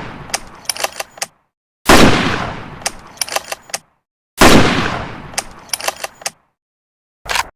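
Blaser R93 straight-pull bolt-action sniper rifle sound effect. Two heavy shots fire about two and a half seconds apart, each followed by a quick run of metallic bolt-cycling clicks, with the clicks of the previous shot trailing off at the start and a short click near the end.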